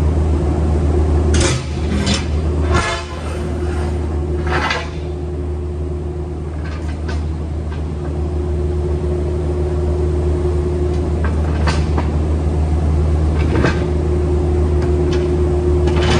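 A steady low engine drone, with sharp metal clanks and scrapes from a diamond-plate metal dock plate being handled and set against a trailer's metal floor: a cluster of knocks in the first five seconds and a few more near the end.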